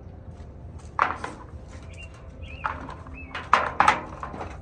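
Sharp clicks and clatter of small plastic cups knocking together and being set down on a metal table, one knock about a second in and a quick group of knocks about three and a half seconds in.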